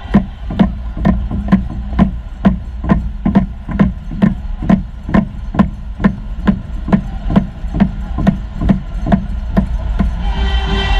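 A drum beaten in a steady, even rhythm, about three strikes a second.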